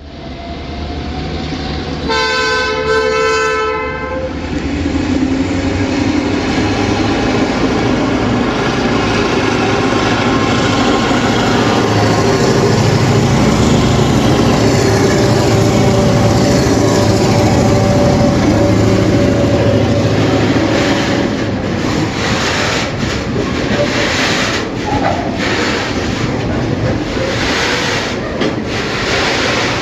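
Roots-blown EMD two-stroke diesel locomotives passing under power with a freight train: a horn sounds for about two seconds early in the pass, then the engines' heavy drone builds and holds, and in the last third the wagons' wheels clatter over the rail joints.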